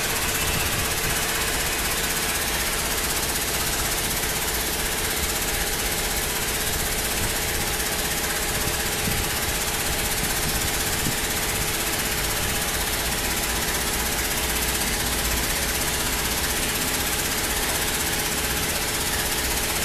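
Carton compression tester's drive motor running steadily as the compression platen travels down, a constant mechanical hum with some steady tones and hiss.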